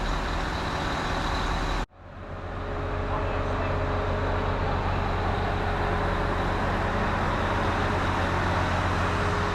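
Heavy diesel engine of a Terex Demag AC200 all-terrain crane running steadily at idle, a low hum with a few steady tones over it. The sound cuts out abruptly a little under two seconds in and fades back within about a second.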